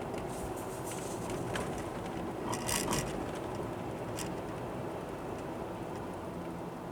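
Car running slowly on a winding road, heard from inside the cabin: a steady low engine and tyre rumble, with a few light clicks and rattles about three seconds in.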